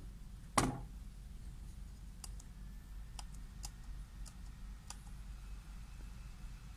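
Laptop keyboard keys clicking, a handful of separate presses spread over a few seconds as a login is typed, after one louder thump about half a second in. A steady low hum runs underneath.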